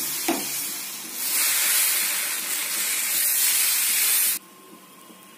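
Ragi dosa batter sizzling on a hot tawa as a steel ladle spreads it in circles: a steady hiss that grows louder about a second in and cuts off suddenly near the end.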